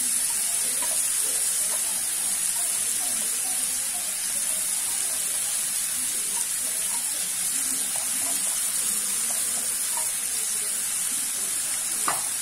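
Chopped onions sizzling in hot oil in a stainless steel kadhai: a steady frying hiss with scattered small crackles. A single light knock near the end.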